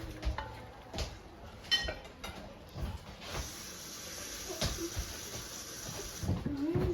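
Kitchen clatter of pots, utensils and cupboards: a few sharp knocks and a short ringing clink, then a steady hiss for about three seconds.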